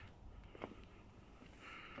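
Near silence: faint background hiss with a soft click about half a second in.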